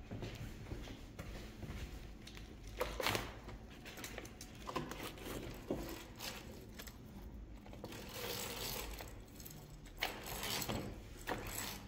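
A window roller blind being raised, its mechanism clicking and rattling in uneven bursts.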